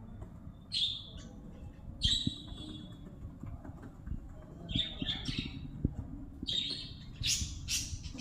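Lovebirds giving short, shrill squawking calls, about six of them, coming closer together near the end.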